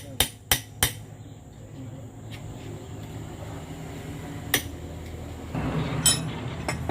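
Hammer blows on metal, about three a second with a ringing clang, stopping about a second in. A single sharp knock follows in the middle, then a noisy stretch of metal parts clinking near the end.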